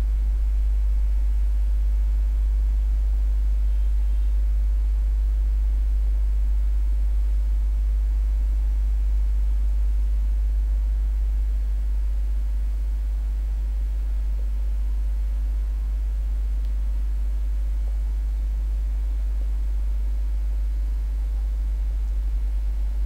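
Steady low electrical hum, like mains hum picked up by the recording, with no other sound over it.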